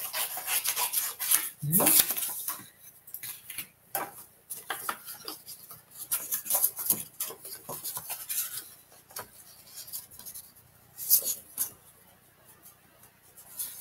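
Paper and an envelope being handled and slid across a craft mat: irregular rustles, scrapes and light clicks, with louder bursts about two seconds in and again near eleven seconds.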